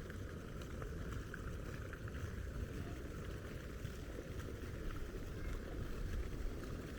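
Steady outdoor background noise, mostly a low, uneven rumble, with a few faint ticks scattered through it.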